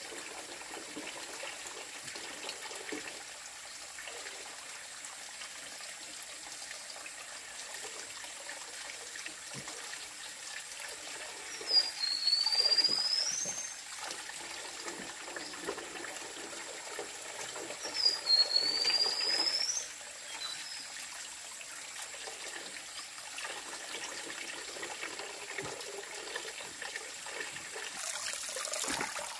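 Stream water trickling and running steadily. Twice near the middle, about six seconds apart, a loud high whistled call dips in pitch and then rises, each lasting about two seconds.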